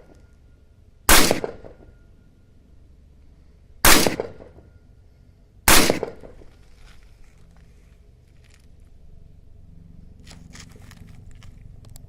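AR-15 rifle firing three single shots, the second about three seconds after the first and the third under two seconds later, each with a short echo. Faint scattered clicks follow near the end.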